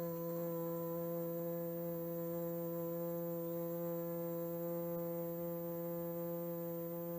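A woman's long, steady closed-lip hum held on one low pitch, made with the tongue rolled back to the middle of the upper palate, the third position of a four-phase humming exercise.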